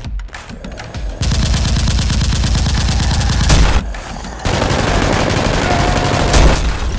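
Rapid automatic-gunfire sound effects in two long bursts, starting about a second in and again about four and a half seconds in, with a short lull between.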